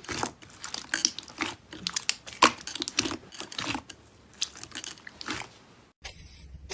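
Slime being squeezed and kneaded by hand, giving a fast, irregular run of crackling clicks and pops. It cuts off about six seconds in, leaving a low hum.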